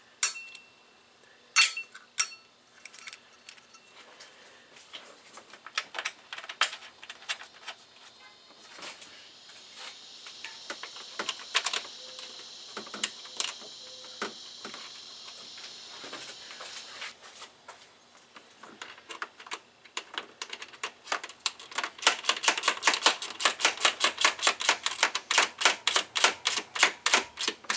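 Hand tools and bolts on metal while the cooling-fan assembly is bolted in: scattered metallic clicks and clinks, then near the end a fast, even run of ratchet clicks, about six a second, as the fan bolts are run in.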